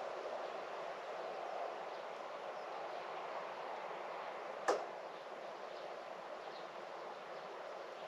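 Steady outdoor background noise, with one sharp click a little past halfway and a few faint, high bird chirps.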